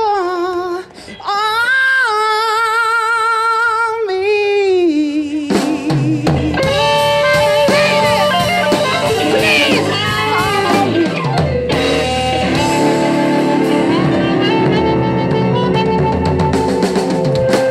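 Live blues band near the end of a song: a lone lead line of held, wavering notes that slide down, then drums, bass and electric guitar come in together about five seconds in and the full band plays on.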